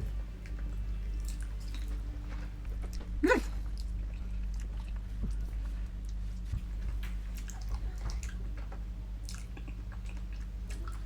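Close-miked eating of chicken feet adobo: small wet clicks and crunches as skin and cartilage are chewed and gnawed off the bones, over a steady low hum.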